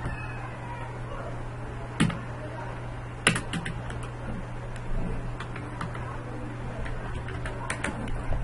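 Typing on a computer keyboard: scattered, irregular keystrokes, with a few louder clicks around two to three and a half seconds in, over a steady low hum.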